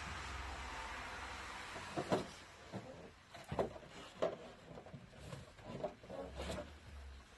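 Ring binders and a cabinet shelf being handled: a string of short knocks and clunks starting about two seconds in, after a steady hiss with a low hum.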